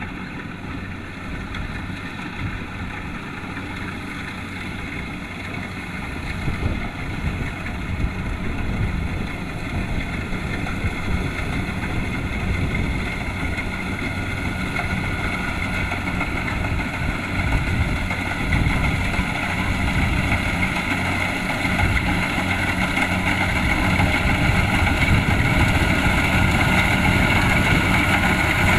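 Kubota DC-70 Plus combine harvester running steadily, its diesel engine droning with a higher machinery whine above it, growing gradually louder.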